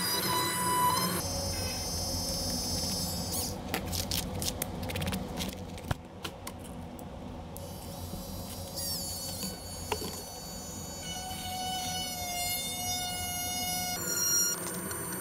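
Background music of held, layered notes that change every few seconds, with a run of light clicks about a third of the way in.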